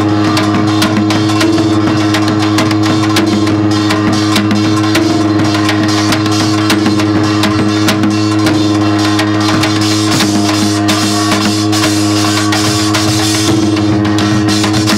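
Samul nori percussion ensemble playing: the janggu hourglass drum and buk barrel drum beaten in a dense, rapid rhythm with the small kkwaenggwari gong clanging over it, and a steady low ringing tone beneath.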